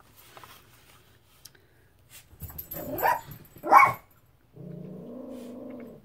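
A household pet calling: two short loud cries a little past halfway, then a steady held pitched call near the end.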